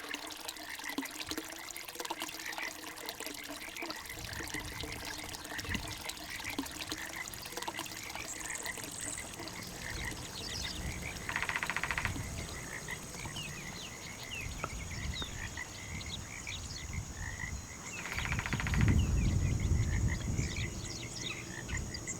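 A chorus of frogs calling, many short chirping calls overlapping throughout. A thin, steady high tone joins about a third of the way in, and two brief rattling sounds stand out around the middle and near the end.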